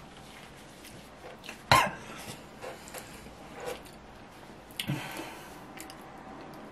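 A man's single short cough about two seconds in, his throat irritated by the extremely hot chili chip he is chewing, followed by soft mouth and breathing sounds.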